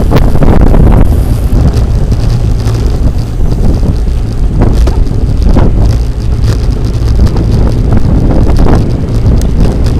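Heavy wind buffeting the microphone of a camera riding along on a bicycle at speed: a loud, steady low rumble, with a few short knocks or rattles.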